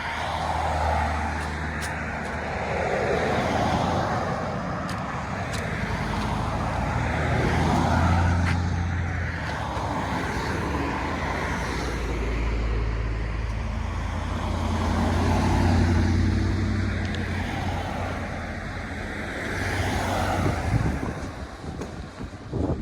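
Car driving on a road: a steady engine and tyre drone that swells and eases over several seconds.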